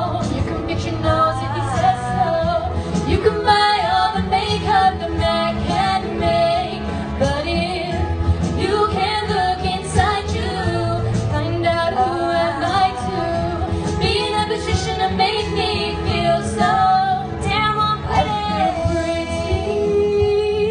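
Two female voices singing a duet into microphones over an instrumental backing with a steady beat.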